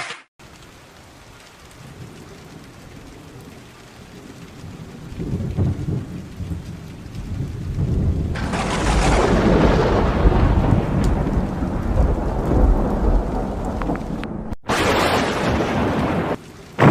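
Heavy rain with thunder. A low rumble builds from about five seconds in, and a loud thunderclap about eight seconds in slowly rolls away over the steady hiss of the downpour.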